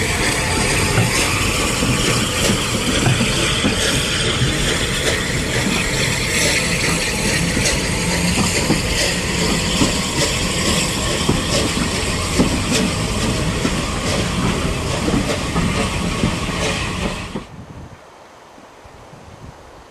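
Unrebuilt Bulleid light Pacific steam locomotive and its train of coaches passing close by: a loud steady rolling rumble with rapid clicks of wheels over rail joints and some hiss. About 17 seconds in the loud sound cuts off abruptly to a much quieter, distant train.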